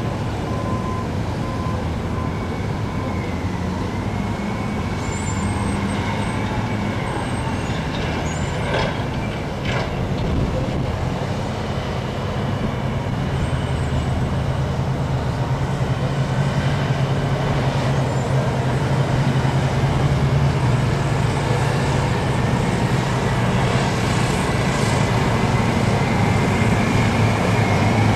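Heavy diesel earthmoving machinery running: a motor grader, then a Caterpillar 631E wheel tractor-scraper whose engine grows louder as it approaches over the second half. A whine rises in pitch near the end, and there are two sharp clanks about nine and ten seconds in.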